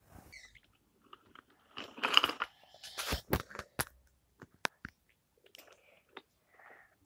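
Wooden toy railway clattering: irregular clicks and knocks of toy train wheels and wooden track pieces, busiest about two to four seconds in.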